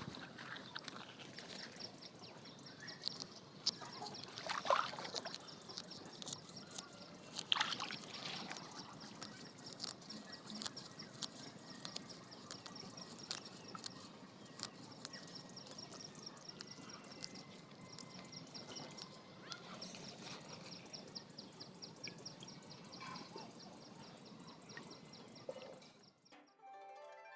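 Rural outdoor ambience: a fast, steady high ticking like insects, with two short animal calls about five and seven seconds in. It cuts off shortly before the end.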